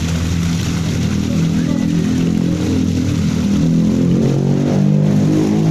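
A steady, low mechanical drone like a running motor or engine, wavering slightly in pitch and growing a little louder in the second half.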